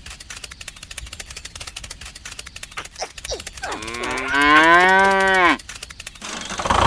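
A cow moos once, a long call of nearly two seconds that rises and then falls away, over a fast run of faint clicking.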